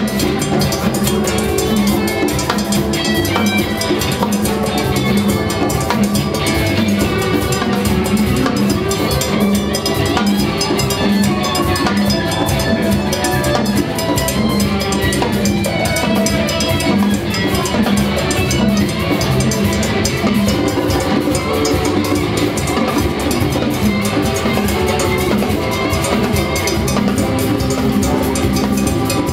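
A live band playing Latin rock, driven by timbales, a pair of congas and a drum kit.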